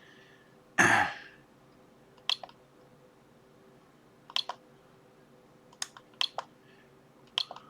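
A short breathy rustle about a second in, then a handful of sharp, light clicks spaced out over the next few seconds, over a faint steady hum: small parts and test gear being handled on an electronics workbench.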